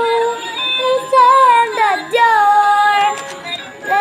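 A high female voice sings long, held notes with music behind it.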